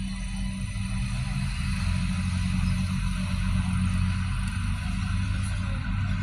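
Diesel railcars of Adelaide's 3000/3100 class running at the station as one pulls in, a steady low engine hum that grows a little louder about two seconds in.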